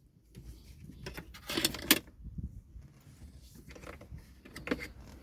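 Car dashboard trim and parts being handled and unclipped: scattered small clicks, rattles and scrapes, with a sharper click about two seconds in.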